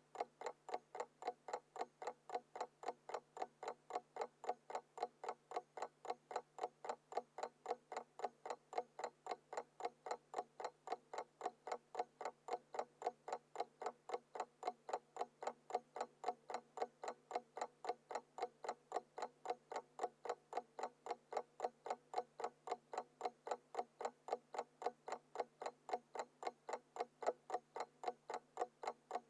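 Small mechanical alarm clock ticking steadily, about four ticks a second.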